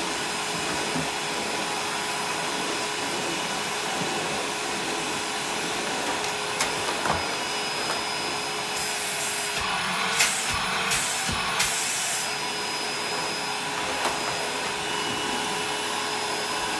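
1995 Numatic Basil NB200 tub vacuum cleaner running steadily while its floor tool is worked over carpet: a steady motor whine over the rush of air, with a few short knocks around the middle. The motor doesn't sound too healthy.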